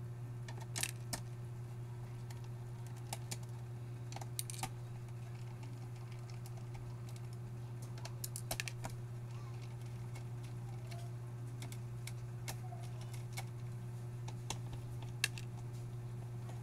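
Scattered small clicks and taps of a screwdriver and screws on the plastic bottom case of an Acer Aspire A314-32 laptop as its screws are taken out, over a steady low hum.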